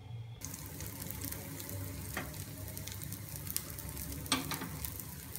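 Dosa batter sizzling on a hot iron tawa, a steady frying hiss that starts suddenly about half a second in, with two sharp crackles.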